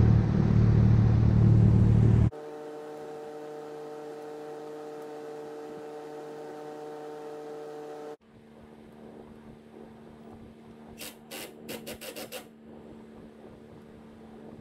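Workshop sounds in edited cuts: a loud low rumble, then a steady hum, then a quick run of about eight short, sharp bursts that fit a cordless impact driver being tapped on suspension bolts.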